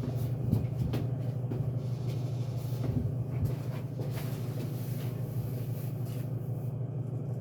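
Minka Aire Spacesaver ceiling fan running at full speed, a steady loud hum with buzzing. A few faint knocks in the first few seconds, as the bathroom's shower vents rattle along with it.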